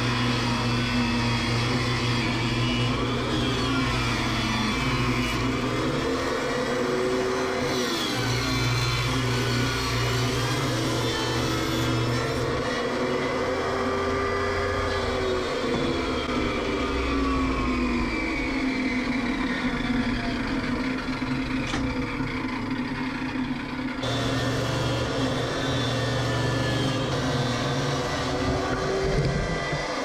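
Benchtop table saw motor running and ripping wood strips, its pitch sagging and recovering as boards are fed and falling away as the blade winds down.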